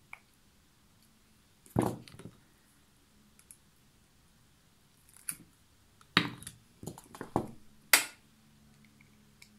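Hands working a white plastic lamp socket onto a two-core cable, making several sharp plastic clicks and knocks. The loudest come about two seconds in and near the end, with a quick cluster just before.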